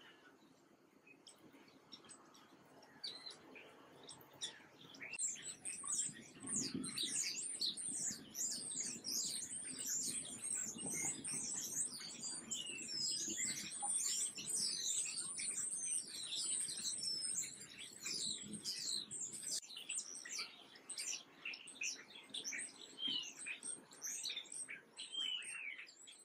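Many small birds chirping and twittering in quick, overlapping calls. The calls are sparse at first and become a dense chorus from about five seconds in.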